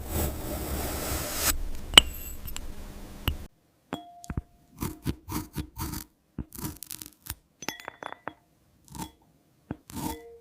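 AI-generated glass-food ASMR sounds. First comes a grainy scraping, crunching stretch with a sharp click partway through. After a short pause there is a run of small glassy taps and clinks, some with a brief ring.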